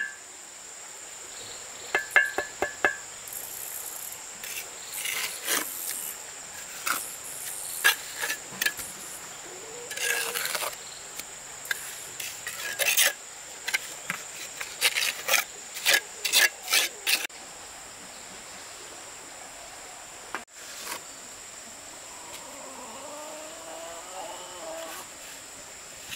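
Hand tools working wood: a quick run of hammer taps, then irregular rasping, scraping strokes that stop a little over halfway through. A steady high insect drone runs underneath.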